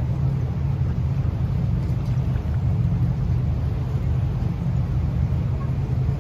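Steady low drone of a river tour boat's engine, heard from on board.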